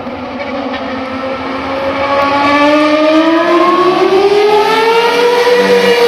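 Ferrari F310B Formula 1 car's V10 engine accelerating hard, its high-pitched note rising steadily in pitch and growing louder as the car comes closer.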